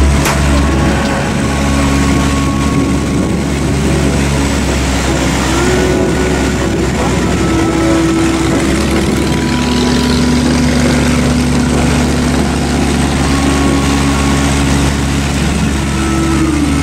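Motorboat engine running steadily under way, over the rush of water and wind; its pitch rises about five seconds in and falls back a couple of times later.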